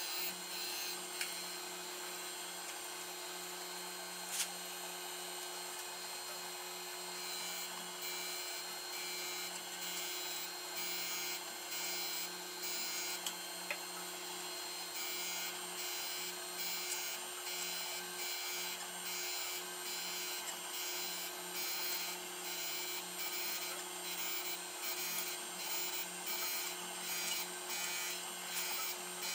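Taft-Peirce surface grinder running with a steady motor and spindle hum while its wheel grinds the steel jaws of a Bridgeport vise. About halfway through, the grinding hiss starts to pulse quickly and evenly as the wheel cuts the jaw, and there are a few sharp ticks in the first half.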